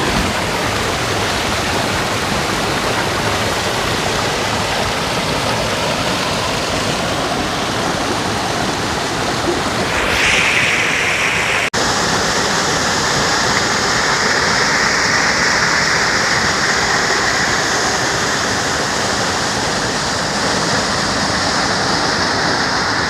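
Waterfall rushing steadily. About halfway through it drops out for an instant and comes back with a slightly brighter, hissier tone.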